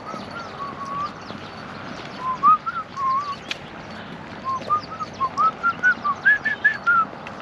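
A person whistling a tune: a run of short notes that step and glide up and down, moving to higher notes near the end.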